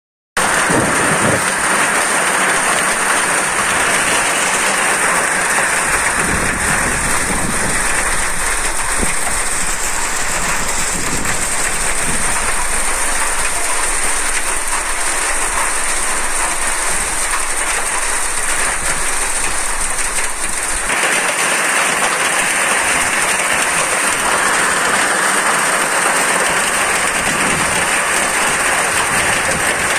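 Heavy rain pouring down in a dense, steady hiss. A low rumble underneath drops away about two-thirds of the way through.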